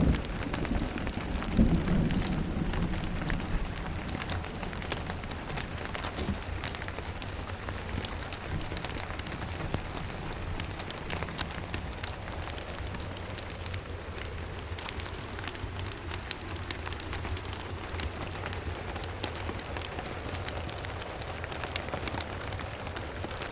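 Steady rain with a low rumble of distant thunder in the first few seconds, then the rain alone, dense with fine drop ticks.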